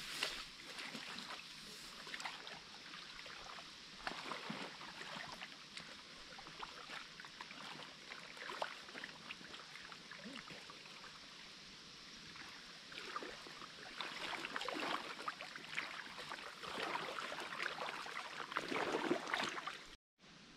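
Someone wading through a shallow ford: irregular splashing and swishing of water around the legs, busier and louder in the last few seconds, then cut off abruptly.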